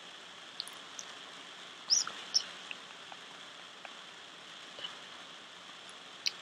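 Fireplace crackling: a steady soft hiss with scattered sharp pops, the loudest pair about two seconds in.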